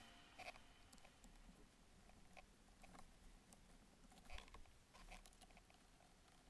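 Near silence with faint, scattered clicks and light taps of hands handling plastic interior trim below the steering column.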